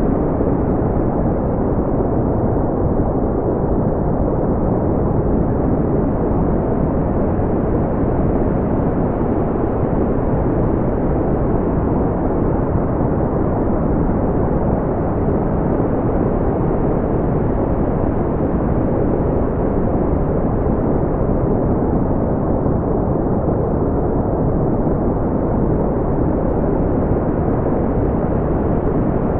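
Steady, unchanging brown noise: a deep, even rush with most of its weight in the low end, thinning out toward the highs.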